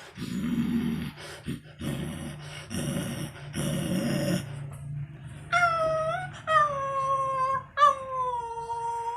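A person's vocal sound impression made with the mouth: a few seconds of rough, noisy bursts, then from about five and a half seconds in three long drawn-out howl-like tones, each dipping slightly in pitch, in imitation of a dog howling.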